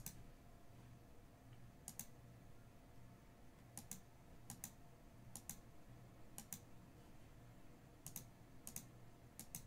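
Faint clicking at a computer, mostly in quick pairs every second or so, over near silence.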